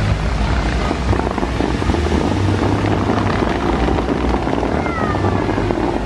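Water jets of the Bellagio fountains rushing and splashing in a dense, steady hiss, with the show's music playing over outdoor loudspeakers and a deep low rumble underneath.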